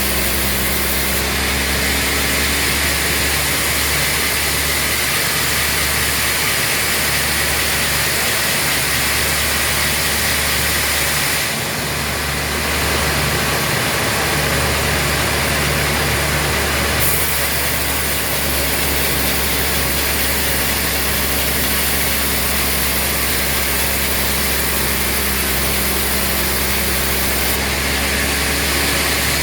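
An engine running steadily at an even speed, with no change in pace. Its tone shifts slightly about twelve seconds in and again about seventeen seconds in.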